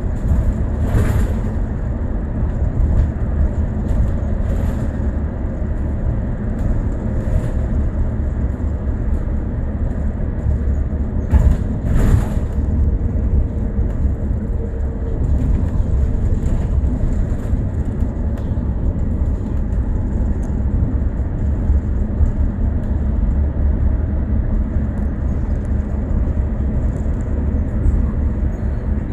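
A bus in motion: steady low rumble of engine and road noise, with a few short sharp rattles, two of them close together around the middle.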